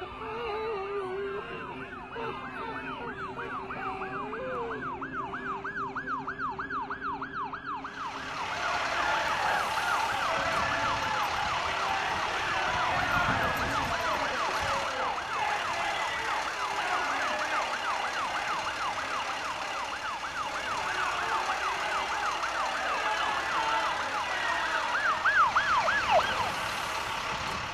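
An emergency vehicle siren on a fast yelp, wavering up and down about four times a second. From about eight seconds in it sounds over a louder rush of steady noise, and near the end it drops in pitch.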